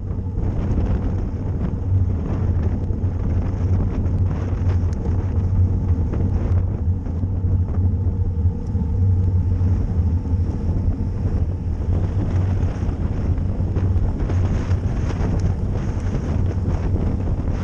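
Wind buffeting the microphone of a camera riding along on a bicycle in a road race, over a steady low rumble, with faint light ticks here and there.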